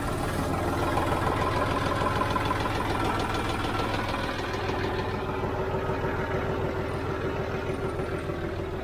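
John Deere 5055D tractor's three-cylinder diesel engine idling steadily just after starting. It is being run to draw fresh hydraulic oil into the new filter and through the hydraulic system after an oil change.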